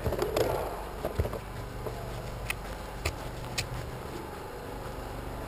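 Footsteps on artificial turf, with a few sharp clicks and rustling, three of the clicks in an even walking rhythm around the middle, over a low steady hum.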